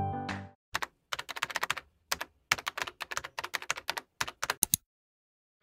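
Computer keyboard typing sound effect: quick key clicks in irregular bursts for about four seconds, then stopping.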